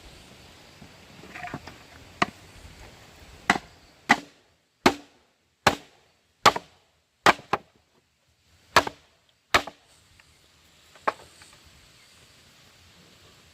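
A tool striking wood again and again, about eleven sharp, irregularly spaced blows, the strongest in the middle few seconds.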